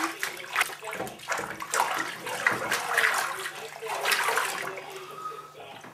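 Shallow bathwater splashing in a bathtub in irregular bursts as a wet cat steps about and is handled in it.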